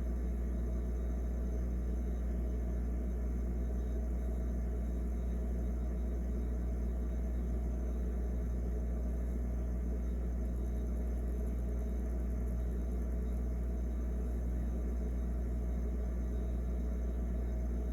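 Refrigerator running with a steady low electrical hum that does not change.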